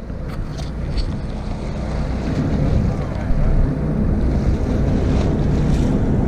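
Wind buffeting the microphone over the steady low rumble of a fishing boat, with seawater washing along the hull.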